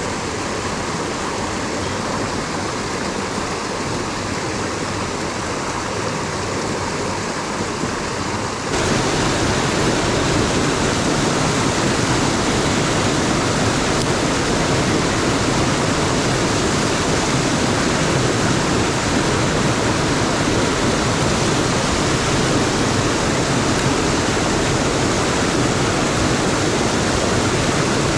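Mountain stream rushing steadily over rocks, an even water roar. About nine seconds in it suddenly grows louder and fuller.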